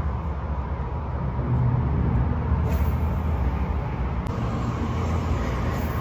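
Road traffic rumbling on an overhead bridge: a steady low rumble that swells about two seconds in.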